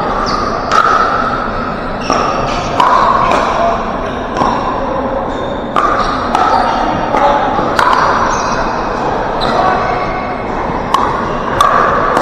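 Pickleball paddles striking the hollow plastic ball: irregular sharp pops, about one or two a second, each with a short ringing tone and echoing in a large gym hall.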